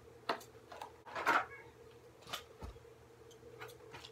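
Cardboard toy box and its plastic packaging being torn open and handled: a series of short scrapes, rustles and clicks, the loudest about a second in. A faint steady electrical hum runs underneath.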